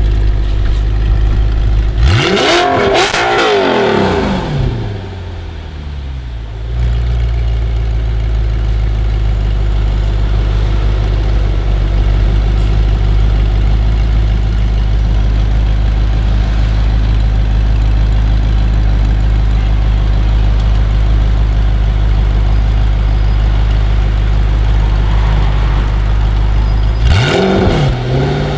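Audi R8's V8 engine idling at the kerb, blipped about two seconds in, the revs then falling back to a steady idle. It is revved again near the end.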